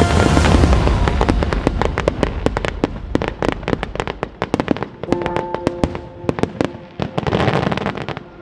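Fireworks going off: a dense low rumble at first, then crackling of many sharp cracks in quick succession that thin out toward the end. Music with held notes comes in about halfway.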